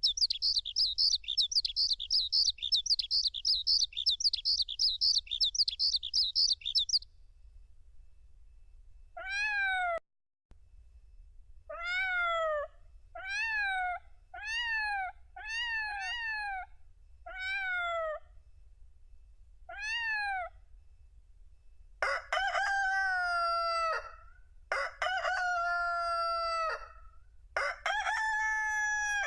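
Built-in sound effects of a Casio CT-X9000 keyboard played one after another. First comes a high, rapid trill for about seven seconds. Then come about eight cat meows, and near the end three long rooster crows.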